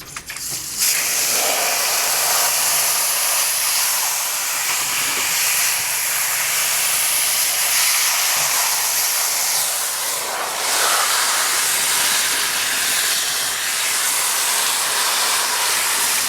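Water spraying hard from a hose nozzle, washing down a dehumidifier's coils: a loud, steady hiss that starts about a second in and cuts off suddenly at the end.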